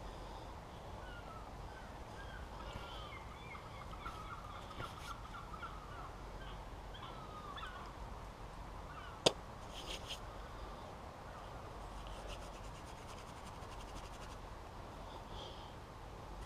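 Wild birds calling with short chirping notes in the woods, against a steady outdoor background. One sharp knock about nine seconds in, followed by a few fainter ticks.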